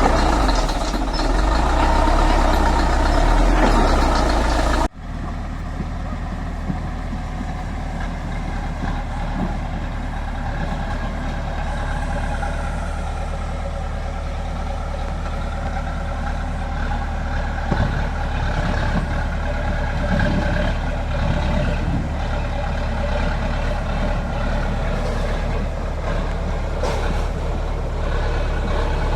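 Heavy diesel construction machinery running steadily, with an abrupt cut to a quieter engine sound about five seconds in.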